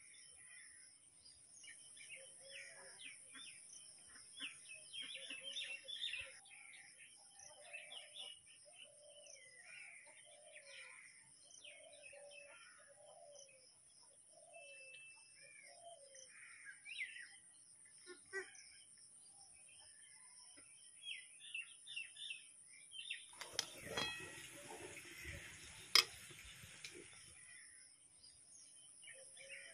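Small birds chirping and calling over and over, with lower repeated calls in the first half. Near the end comes a few seconds of rustling noise with a couple of sharp clicks.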